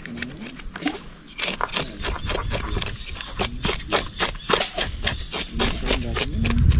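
A small knife scraping the scales off a fresh fish in quick, rasping strokes, several a second.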